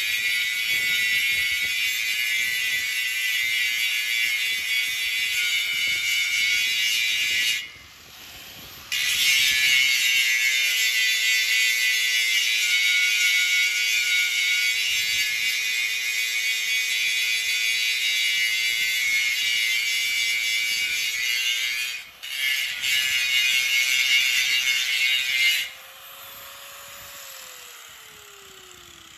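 Corded angle grinder with an abrasive disc grinding the paint off the top of a steel tank: a loud, harsh grinding over a steady motor whine. The grinding breaks off briefly about eight seconds in and again around twenty-two seconds. Near the end the disc is lifted off, the motor runs on more quietly, then winds down as it is switched off.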